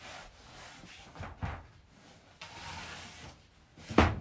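Large sheet of shoji paper rustling and sliding as it is smoothed over a wooden shoji frame, with a couple of soft thumps. Near the end a metal straightedge is set down on it with one sharp knock, the loudest sound.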